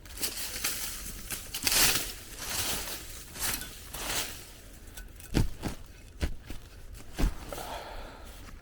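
Digging into the ground to recover a metal-detector target: irregular scrapes of a digging tool through soil, with a few dull knocks as the blade strikes the ground.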